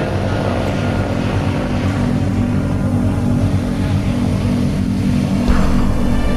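A motor drones steadily beneath the noise of heavy surf breaking and churning, with a brief louder surge about five and a half seconds in.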